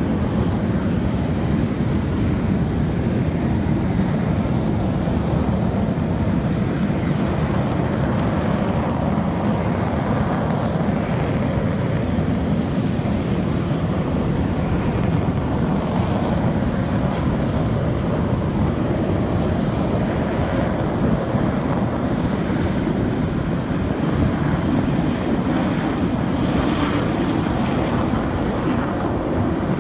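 Aircraft engine noise at an air show: a loud, steady rumble that holds level throughout.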